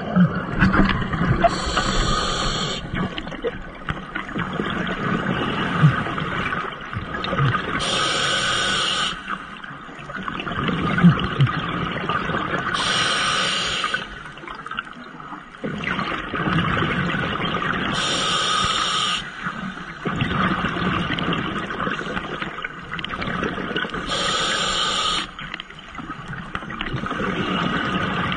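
Scuba diver breathing through a demand regulator underwater: a hissing inhale about every five seconds, five in all, each followed by several seconds of exhaled bubbles gurgling out of the regulator.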